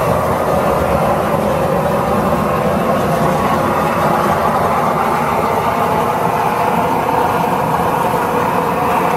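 Gas burner firing a raku kiln at about 1,000 degrees, a loud, steady rush of flame.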